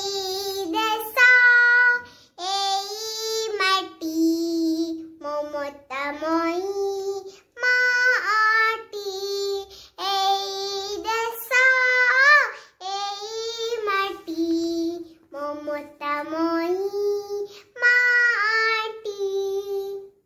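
A young girl singing a song in Odia solo and unaccompanied, in a high child's voice, in short phrases with brief pauses between them.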